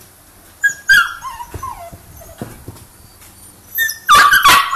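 Young Belgian Malinois puppy whimpering and yelping in high, sliding cries, with a loud burst of yelps about four seconds in.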